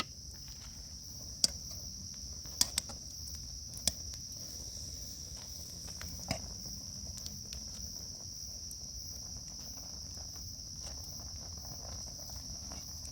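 Steady, high-pitched trilling of a night insect chorus in woodland, with a few sharp clicks in the first six seconds or so.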